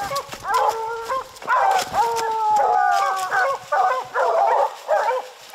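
A pack of bear hounds baying, several dogs' long drawn-out bawls and shorter barks overlapping one another: the sound of hounds that have a black bear bayed on the ground.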